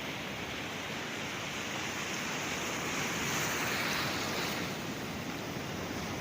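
Sea waves washing on the shore: a steady surf noise that swells to a peak about halfway through, then eases back.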